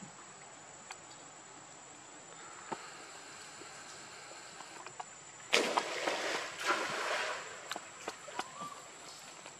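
Water splashing and sloshing as a baby monkey swims and paddles in a pool, starting suddenly about five and a half seconds in and lasting about three seconds, after a quiet stretch of faint steady hiss.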